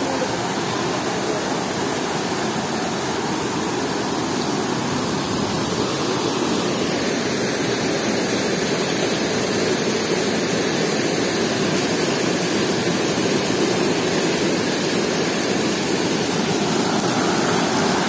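Waterfall: a steady rush of falling water, growing a little louder after a few seconds.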